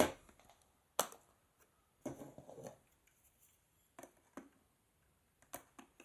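Plastic parts of a Kitfort KT-509 stick vacuum being handled as its handle is pushed into the slot on the body: a few sharp plastic clicks and knocks, with a short scrape about two seconds in.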